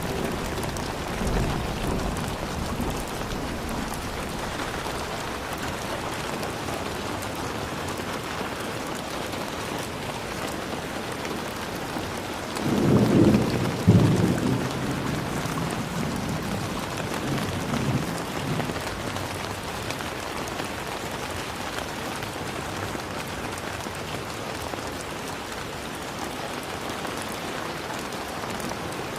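Steady rain falling, with a low rumble of thunder about halfway through that is the loudest thing heard, and fainter rumbles near the start and a few seconds after the main one.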